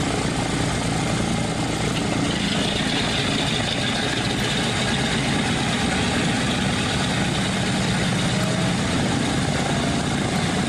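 Boeing B-17G Flying Fortress's Wright R-1820 Cyclone nine-cylinder radial engines running at idle on the ramp just after start-up, a steady low rumble that grows fuller about two seconds in.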